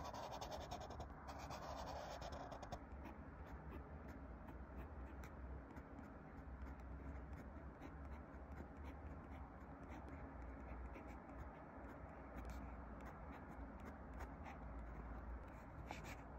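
Pens writing faintly on diary paper: a felt-tip marker drawing a stroke in the first few seconds, then a fountain pen nib scratching lightly as it writes.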